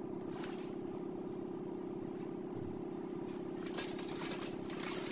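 Steady low mechanical hum, unchanging throughout, with light paper rustling and small clicks starting a little past halfway as napkins and items are handled on the table.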